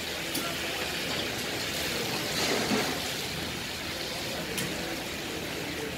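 Dumba karahi of mutton and tomatoes sizzling in black woks over wood fires: a steady hissing sizzle that swells about two and a half seconds in, with a couple of faint clicks.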